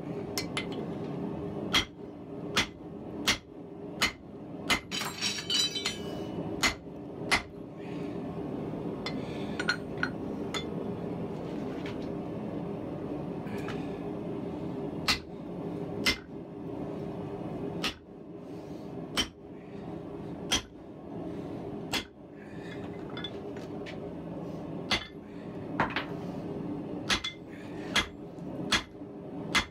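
Blacksmith's hammer striking hot 4140 steel on an anvil: sharp ringing blows at an uneven pace, sometimes about two a second, with a pause of several seconds near the middle. A steady low hum runs underneath.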